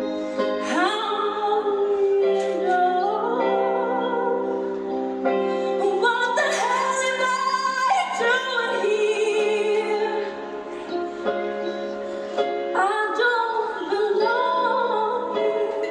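Live show music: a woman singing long, wavering held notes over sustained instrumental accompaniment, recorded on a phone with thin sound and almost no bass.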